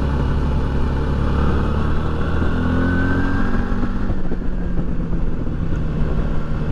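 Adventure motorcycle engine running at road speed under a steady rush of wind and road noise; the engine note rises for about a second a little before halfway through.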